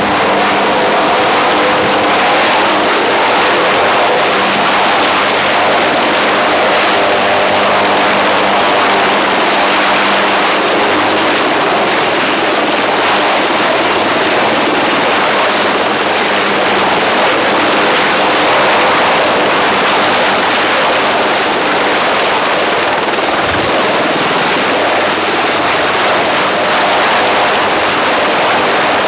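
UH-1Y Venom helicopter hovering close to the ground: the whine of its twin turboshaft engines over the rush of its four-blade main rotor, loud and steady.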